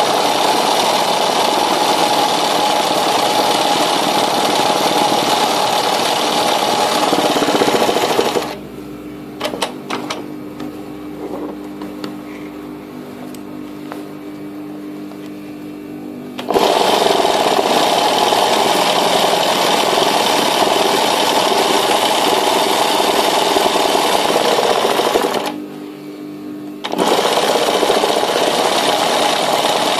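An embroidery sewing machine stitching at speed while the hooped fabric is guided by hand under the needle. It stops about eight seconds in, leaving a lower steady hum and a few clicks, and starts stitching again about halfway through. It pauses once more, briefly, near the end.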